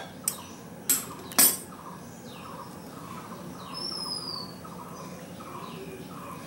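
A few sharp clinks of a steel ladle against a steel strainer in the first second and a half. After that, birds calling: a short note repeated about twice a second, and one thin high falling whistle about 4 s in.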